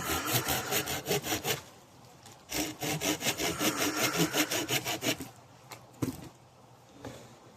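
Fast back-and-forth sawing strokes on birch wood, about five or six a second, in two runs with a short pause between, then a single light knock near the end.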